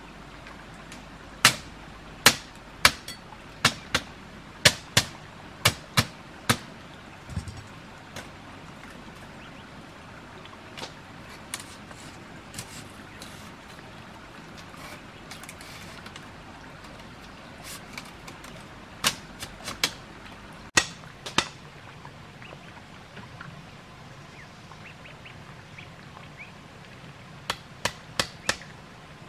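Domestic ducks quacking in short, sharp runs of calls: about a dozen in the first seven seconds, a handful around twenty seconds in, and four quick ones near the end.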